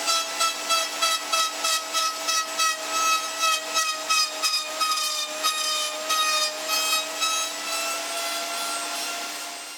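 Router running on a router table with a steady whine while a cove bit cuts into the end of a wooden rod being turned against it, the cutting noise swelling and easing about twice a second. Near the end the cutting stops and only the motor whine is left.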